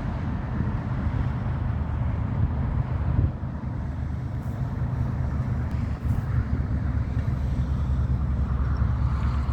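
Steady low rumble of BNSF diesel freight locomotives running.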